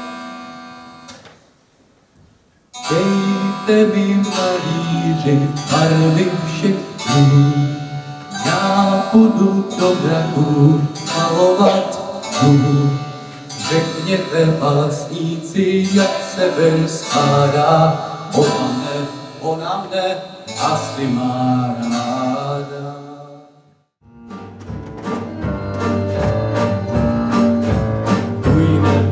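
Live stage song: a young man's voice sings a slow song into a microphone over instrumental accompaniment, after a short held note at the start fades out and a brief pause. About 24 s in the song ends with a moment of near silence, and a new, more rhythmic musical number begins.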